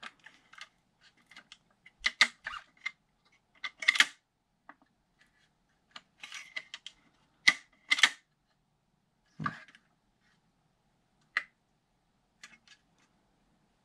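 Hard plastic clicks, taps and scrapes as a WE G18c airsoft pistol is worked into a 3D-printed PLA folding-gun shell. Irregular small clicks, with a few louder snaps and one duller knock.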